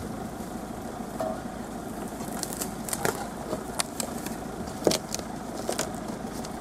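Steady running of a safari vehicle's engine, with a scatter of sharp clicks and snaps from about two seconds in.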